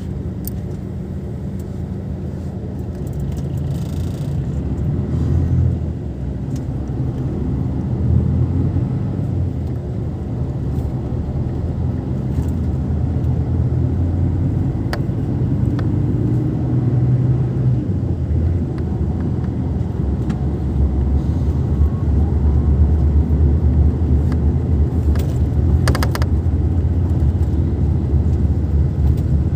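Steady low engine rumble, growing slowly louder.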